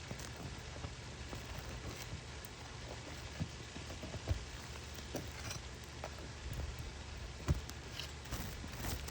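Scattered light taps and knocks over a steady low hum, with two sharper knocks about four seconds in and again near seven and a half seconds.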